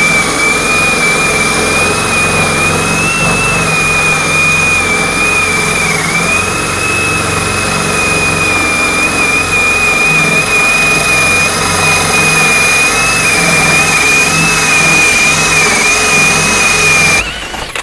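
DEKTON cordless drill running at high speed, driving a core bit of about 42 mm through a brick wall: a steady, loud, high motor whine with slight wavering in pitch as the bit grinds through the brick. It cuts off abruptly just before the end.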